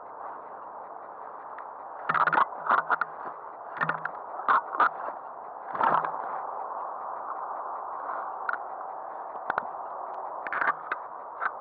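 Handling noise on a body-worn camera: clusters of short, loud rustles and scrapes as clothing or gear brushes against the microphone, over a steady hiss.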